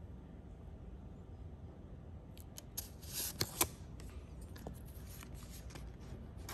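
Translucent plastic film cards being handled: they slide out of a cardboard holder and are laid down, with rustles and sharp little clicks. It starts after a couple of seconds of faint low hum, and the two loudest clicks come about three seconds in.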